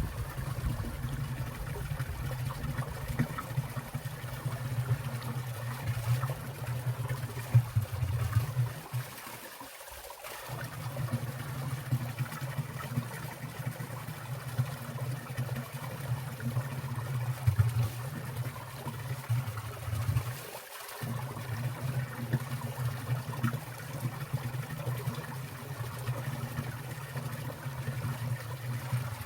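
Winter valley stream running and trickling among icicles, with water dripping and splashing. A few louder splashes stand out, and the low rush drops out briefly twice.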